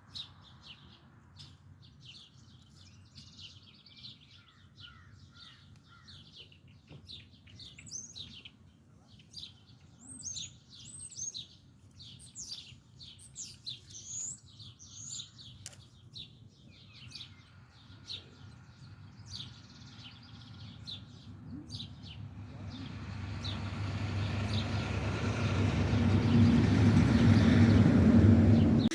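Small birds chirping and calling, many short quick high notes. In the last several seconds a rumbling noise swells up until it drowns the birds, then cuts off abruptly.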